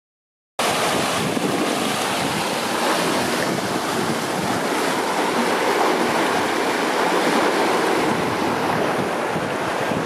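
Steady, loud rushing of fast-flowing floodwater, an even hiss with no breaks, cutting in about half a second in.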